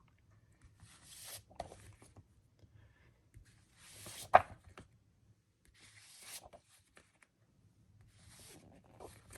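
Comic books being handled: soft papery rustles every couple of seconds as books are slid and shuffled against each other, with one sharp tap about four seconds in.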